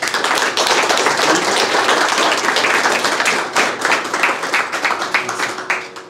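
A small group of people applauding, the claps thinning out near the end.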